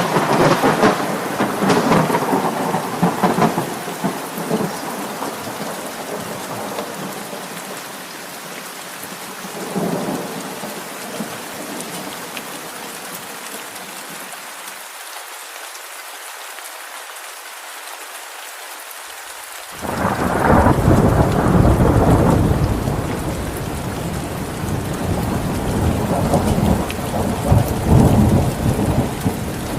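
Steady rain with rolling thunder. A rumble comes at the start and a smaller one about ten seconds in. The low rumble drops out for a few seconds before a loud roll of thunder sets in suddenly about twenty seconds in, swelling again near the end.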